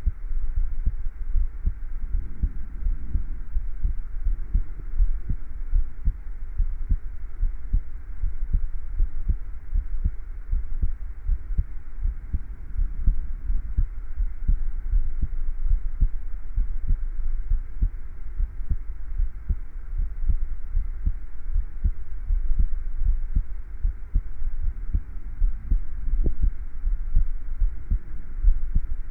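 A person's heartbeat, a steady run of low thumps.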